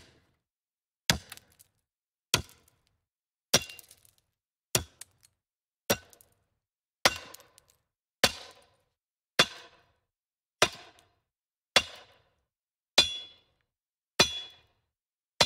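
Edited-in sound effect of sharp single hits, one about every 1.2 seconds, with dead silence between them; the later hits ring briefly.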